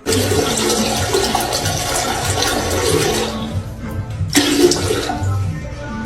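Rushing water, fading after about three seconds and starting again sharply about four seconds in.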